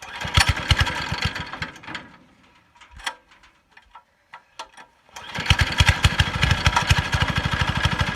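Chinese 168F single-cylinder diesel engine cold-starting in freezing weather. It fires for about two seconds and dies away, then about five seconds in it catches and keeps running with a rapid, even beat of firing strokes.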